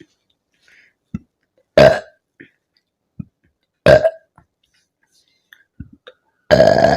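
A woman burping loudly three times, about two seconds apart, with the last burp the longest. The burps come from gas brought up after chugging carbonated soda. Short faint clicks from the mouth fall between them.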